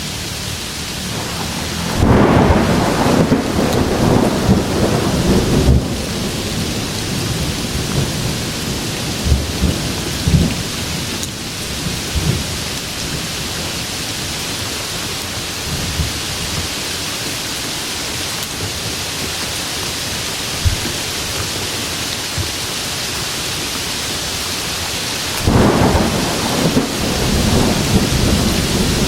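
Steady heavy rain with rolling thunder. A loud crackling rumble comes about two seconds in and fades over several seconds, and a second one builds near the end.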